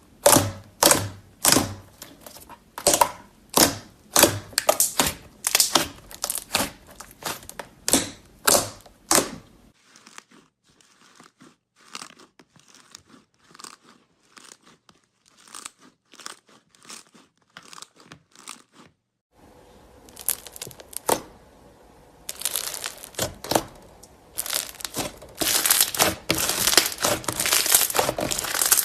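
Slime being pressed and worked by hand, giving sharp crackling pops about twice a second, then a stretch of fainter, sparser clicks. From about twenty seconds in there is a dense, continuous crinkling crackle.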